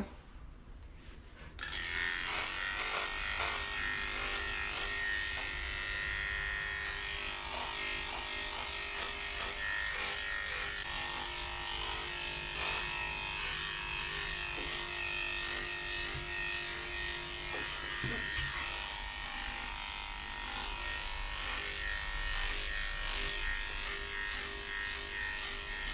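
Electric dog grooming clippers with a #7 blade running steadily, switched on about a second and a half in, shaving a Havanese's matted coat.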